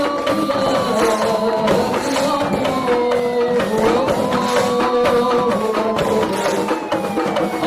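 Music with singing, tambourine and drums, and a slow rising-and-falling wail that repeats about every four and a half seconds.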